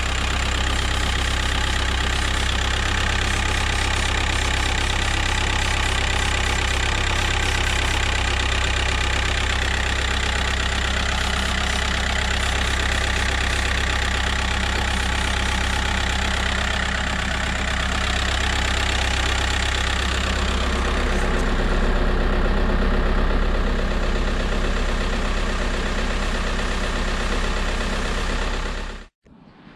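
VW T5 Transporter's 1.9 TDI four-cylinder diesel idling steadily while brake cleaner is sprayed around the boost hoses and connections. The engine note does not change, so no boost leak shows up. The sound cuts off abruptly near the end.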